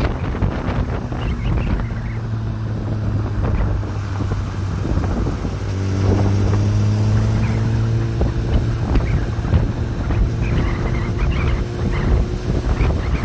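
An engine running steadily, its pitch rising about six seconds in, with wind buffeting the microphone.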